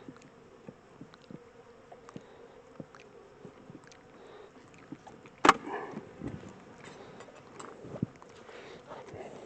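Honey bees buzzing steadily around an open hive, with scattered light clicks and a sharp knock about halfway through, and a smaller knock later.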